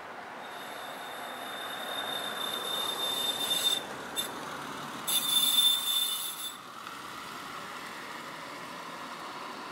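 A car passing close by on the street. A steady high-pitched squeal runs for about three seconds, breaks off, and comes back louder for about a second and a half as the car goes past.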